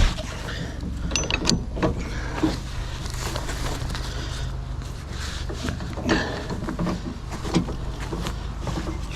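Recovery rigging gear being handled, with scattered knocks and clinks, over a steady low hum.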